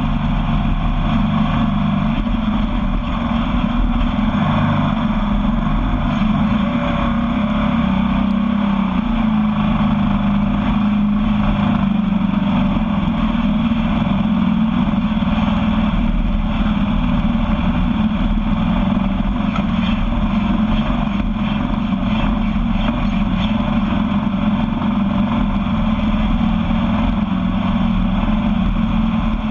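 Sandrail's engine running at a steady cruising speed, with wind and tyre noise on a sandy dirt track, heard without change throughout.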